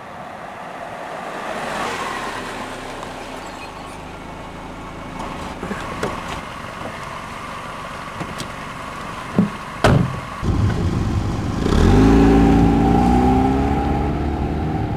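Chrysler PT Cruiser's four-cylinder engine running as the car rolls up and stops. A little past the middle a car door shuts with two sharp knocks, then the engine revs up as the car pulls away, its pitch rising. The pull-away is the loudest part.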